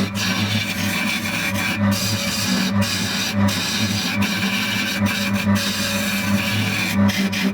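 Abrasive scraping on wood over a steady low hum, a continuous rasping texture with a few brief breaks.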